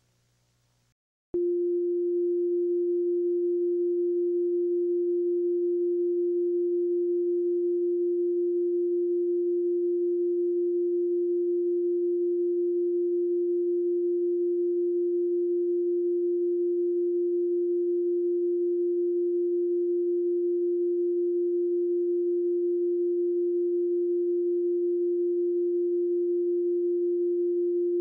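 Colour-bar test tone: a single steady pure tone that starts abruptly about a second in after near silence and holds at one pitch and level. It signals a station that has gone off the air.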